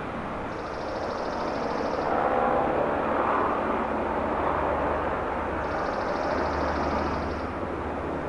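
Steady outdoor background of distant traffic, swelling slightly and slowly. Two brief high whirs of about a second and a half each come in, one just after the start and one near the end.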